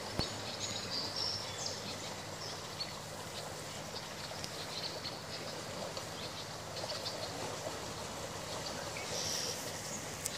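River water running over a shallow gravel riffle, a steady rush, with short high chirps now and then.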